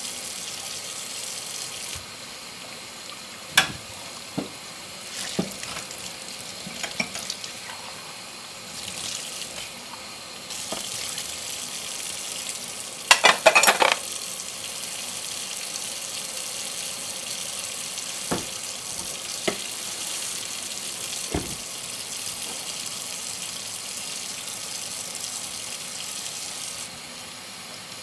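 Tap water running into a kitchen sink while dishes are washed by hand, with scattered clinks of crockery and a short, loud clatter of dishes about halfway through. The water flow comes on stronger about a third of the way in.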